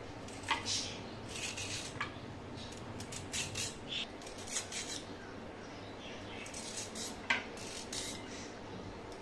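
A vegetable peeler scraping along a raw carrot, shaving off thin ribbons in irregular strokes with short pauses. Two louder clicks come near the start and near the end.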